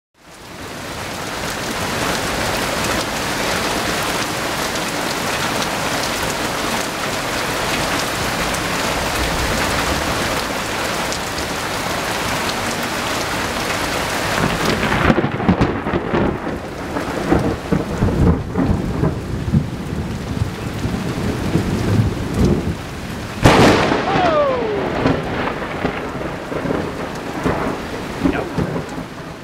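Heavy rain falling steadily in a thunderstorm, joined about halfway through by low thunder, with a sudden loud thunderclap a few seconds before the end.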